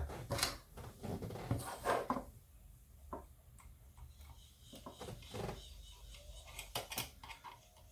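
Light clicks, taps and rubbing from hands handling and prying at the small plastic parts of a power-supply cooling fan, busier in the first two seconds and then sparse, scattered clicks.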